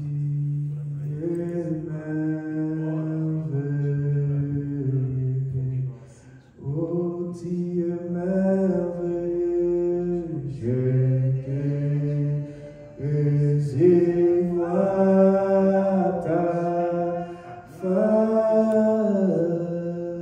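Slow worship singing: a voice holding long notes in drawn-out phrases, breaking briefly between them about every three to five seconds.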